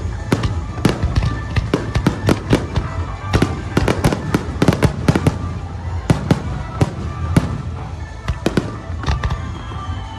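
Aerial fireworks shells bursting in a rapid barrage: many sharp bangs, about three a second, over a continuous low rumble of echoing booms.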